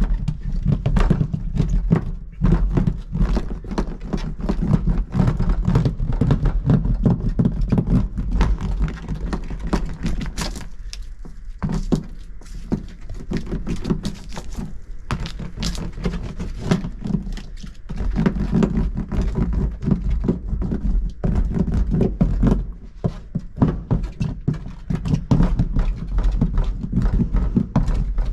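A hand roller pressed and rolled back and forth over 2 mm Silent Coat sound-deadening mat on a 2021 Citroen C3 sheet-metal body panel: a dense, irregular run of thuds and knocks, with a couple of brief lulls.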